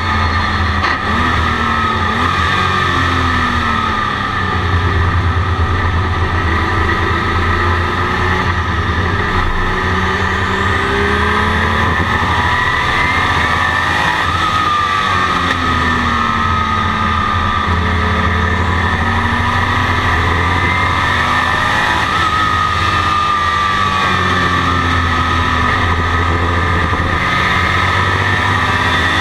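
Turbocharged flat-six engine of a 1982 Porsche 935 race car heard from inside the cabin at track speed. Its pitch climbs through the gears and falls back on lifts and downshifts several times.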